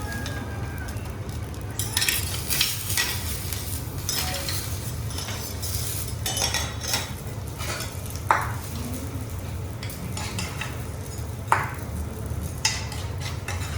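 Food sizzling on a steel teppanyaki griddle as metal spatulas scrape and stir it, with a few sharp clinks of spatula on the plate in the second half.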